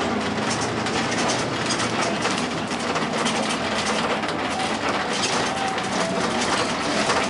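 Bus interior while driving: steady engine and road noise inside the cabin.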